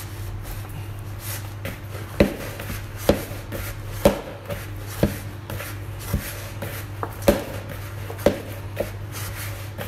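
Pizza dough being kneaded energetically by hand in a large bowl, with the olive oil just added being worked in: a dull thump about once a second as the dough is pressed and folded.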